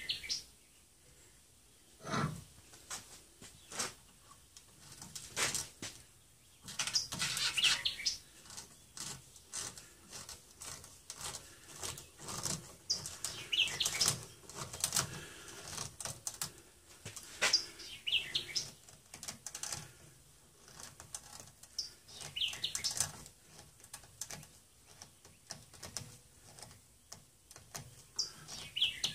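Worm-drive hose clamp being tightened with a nut driver on a wooden hoe handle: an irregular run of small clicks and ticks from the screw and tool. Birds chirp with short high calls several times.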